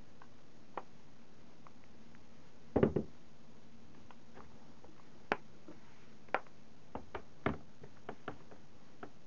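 Knocks and taps of a laptop's plastic case being turned over and set down on a desk: a loud cluster of knocks about three seconds in, then a scatter of single light clicks.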